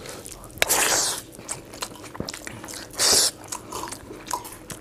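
Close-up eating by hand: chewing and fingers working rice and curry on steel plates, with many small clicks and two short, loud hissing sounds, one under a second in and one about three seconds in.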